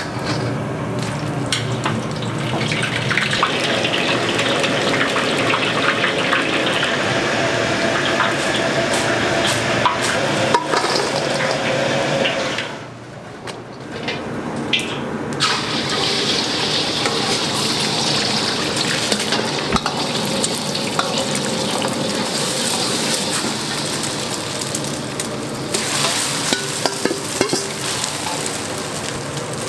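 Dumplings deep-frying in hot oil in a wok, a steady sizzle with small crackles. It cuts out briefly about 13 seconds in and comes back with a brighter hiss. Near the end there are light metal clicks as a ladle stirs through rice in a pot.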